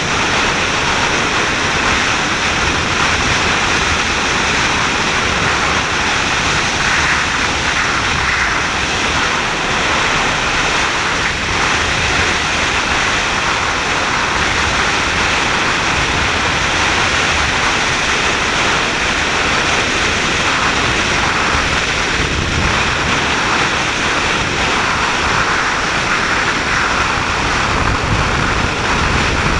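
Steady rush of wind and road noise from a 4x4 off-road vehicle driving over flat gravel desert, heard through a camera mounted outside the body, with the wind buffeting the microphone.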